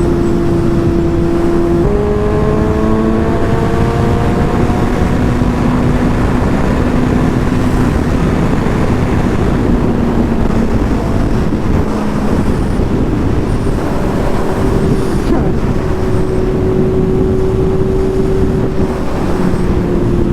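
Suzuki GSX-S750's inline-four engine under way, with heavy wind rush. Its note steps up about two seconds in and climbs for a few seconds as the bike pulls, then drops back and holds at a steady cruise.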